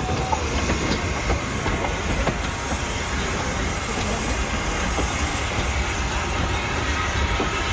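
Sierra Railway steam locomotive No. 28 rolling slowly along the track: a steady running noise with scattered clicks of wheels and running gear over the rails.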